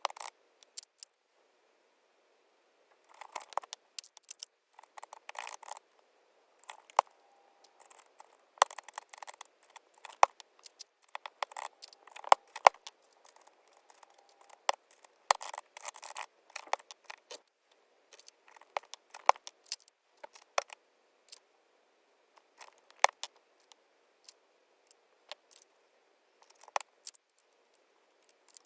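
Plastic keycaps being pulled off and pressed onto a mechanical keyboard's switches. Irregular clicks, taps and short scrapes come in clusters, with brief pauses between them.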